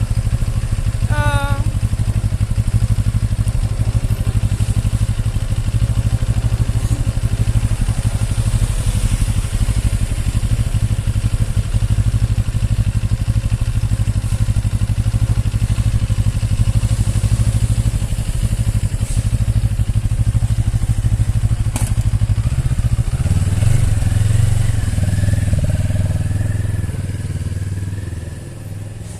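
CFMoto 700CL-X's 693 cc liquid-cooled parallel-twin engine running steadily. About 23 seconds in its note shifts, and it grows quieter toward the end as the bike moves off.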